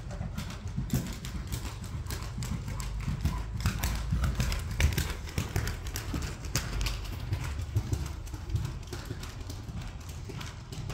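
Hoofbeats of a grey horse cantering on the sand footing of an indoor riding arena, a run of soft, irregular strikes that grow louder as the horse passes close by about five seconds in.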